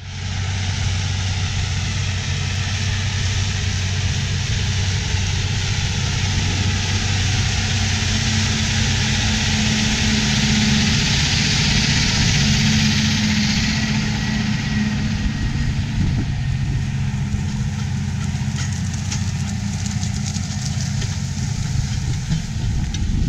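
Versatile 550 Delta Track tractor's 15-litre Cummins diesel running steadily under load while pulling a 14-bottom moldboard plow, with a constant rushing noise. It grows a little louder in the middle as the tractor goes close by.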